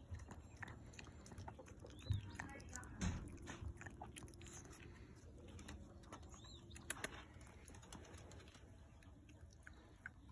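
Small dog chewing and biting a slice of cantaloupe from a hand, with short wet clicks and smacks, and two louder low bumps about two and three seconds in.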